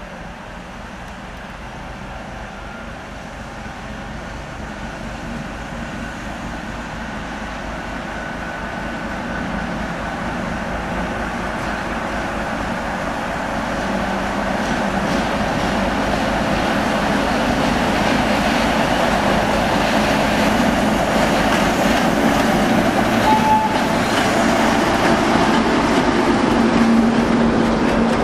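ČME3 diesel shunting locomotive's six-cylinder engine pulling away with a heavy freight train, growing steadily louder as it approaches and passes. Near the end, the loaded timber wagons roll by with wheels clicking over the rail joints.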